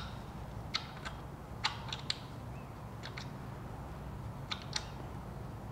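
About nine short, light metal clicks in small groups as a test bolt is turned by hand into a freshly installed Helicoil thread insert in an aluminum engine front case. The bolt won't go in quite right: the insert needs to go in further.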